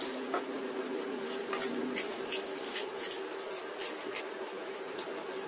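Crisp puchka (pani puri) shells cracking and crunching as they are poked open and eaten: a quick run of sharp little cracks over about three seconds in the middle, over a steady low hum.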